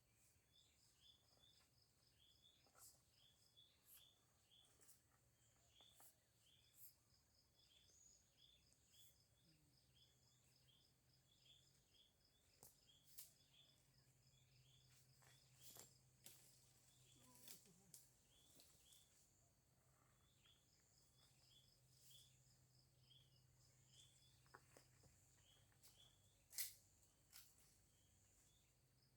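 Faint forest sounds: a small bird repeats a short, high falling chirp over and over, under two a second, over a steady, fast insect trill. A few sharp clicks come through, the loudest near the end.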